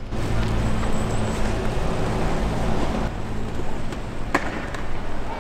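Steady road-traffic rumble with a low hum, and a single sharp click about four seconds in.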